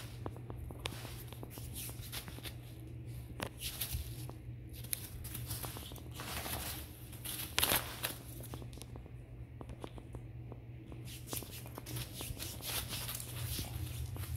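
A ferret scrambling through loose foam packing peanuts and over bubble wrap on a tile floor: scattered light clicks and rustling crinkles, with a louder rustling burst about halfway through as it dives into the peanuts.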